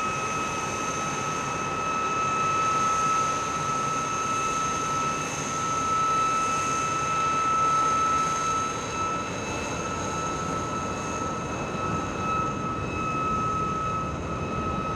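De Havilland Vampire FB.52's single Goblin turbojet running at taxi power, a steady high whine over a constant rushing jet noise.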